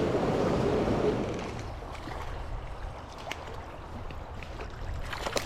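Rushing noise of flowing creek water and wind on the microphone, louder for the first second and a half and then dropping to a quieter hiss, with a few faint clicks near the end.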